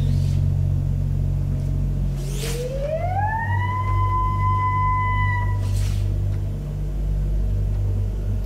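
Ambient sound-design score: a steady low drone, with two airy swishes, and a single tone that glides up about two seconds in, holds for about two seconds and fades.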